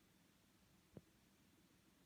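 Near silence: faint room tone, with one small click about a second in.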